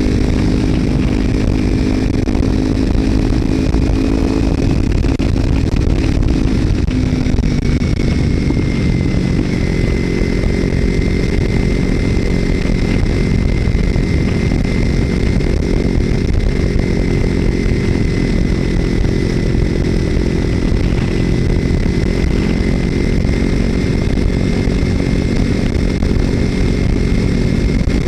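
Kawasaki Ninja 300's parallel-twin engine running under way through a Screaming Demon slip-on exhaust with its baffle taken out, over a dense low rush of wind. The engine note holds fairly steady, dropping a little in pitch about seven seconds in, then keeps on evenly.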